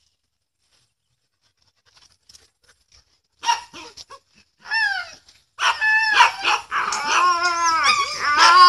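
Husky yipping and whining in high calls whose pitch bends up and down. A short yelp comes about three and a half seconds in, then a falling cry, then from about halfway a near-unbroken run of yips and howl-like whines.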